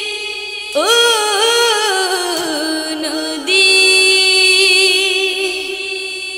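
A Bangla song playing as background music: a singer holds long, drawn-out notes between lyric lines, sliding up, stepping down, then sustaining one long note.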